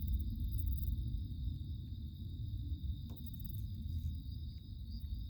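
Crickets trilling continuously in a steady high band, over a low, constant rumbling noise.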